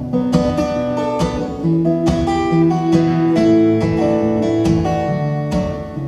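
Solo acoustic guitar playing an instrumental break between sung verses of a folk song. Several picked notes and chords a second ring on over each other.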